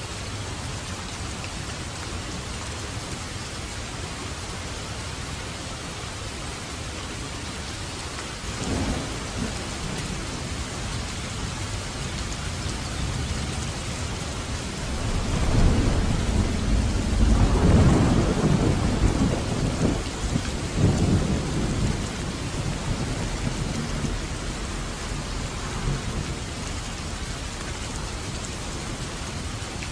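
Steady heavy rain falling, with a faint thunder rumble about nine seconds in and then a long rolling peal of thunder about halfway through that swells, rumbles for several seconds and dies away.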